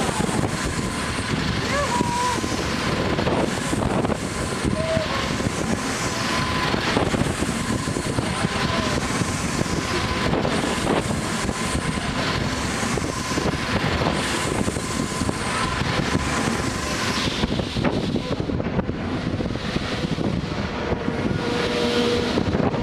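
Technical Park Apollo 2000 Egg Dance ride in full motion, heard from a gondola: a steady, rushing mechanical rumble with a thin steady whine that fades out about two-thirds of the way through.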